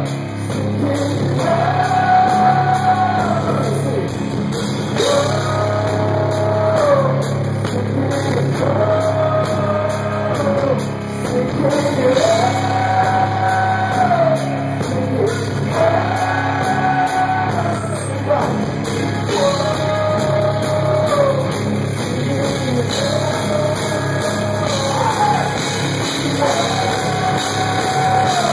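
Rock band playing live, with a male singer holding long sung lines, a new phrase about every two seconds, over bass guitar and the rest of the band.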